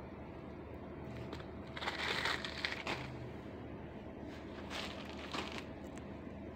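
Plastic packaging crinkling as it is handled: a burst of rustling about two seconds in lasting about a second, and a shorter one about five seconds in, with a few small crackles between.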